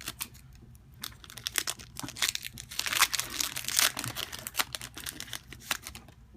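Foil wrapper of a Pokémon trading-card booster pack crinkling and tearing as it is opened by hand, in quick irregular crackles.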